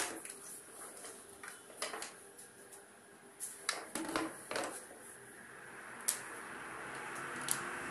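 Handling noise from a pair of plastic desktop speakers being turned over in the hands and set down on a tabletop, their cables shifting: a scatter of light knocks and clicks over a faint hiss that swells near the end.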